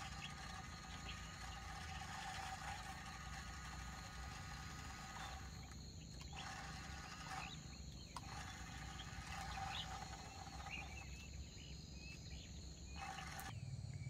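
A wild animal trilling steadily on one pitch, in long stretches of several seconds that drop out briefly about five and seven seconds in and for a couple of seconds near the end, over a faint low rumble.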